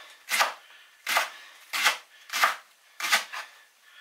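Knife chopping leeks coarsely on a cutting board: about six crisp chops at a steady pace, the last two close together.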